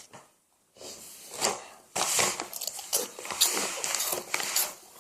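Snacks and their packaging being handled: a run of crisp crackling and crunching noises, which starts after a moment of near silence and is densest over the last three seconds.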